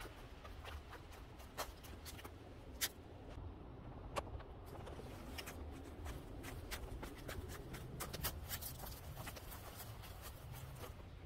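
Footsteps on a dirt trail and leaf-covered stone steps, with scattered crunches and crackles of dry leaves underfoot over a low steady rumble on the microphone.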